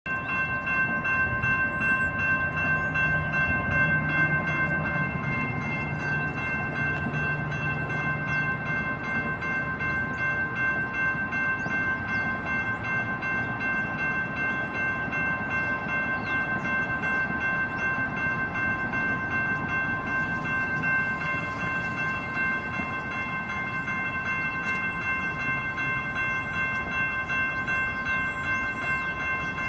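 Railroad crossing warning bells, two General Signals Type 2 electronic bells, ringing steadily and continuously while the crossing is activated for an approaching light rail train.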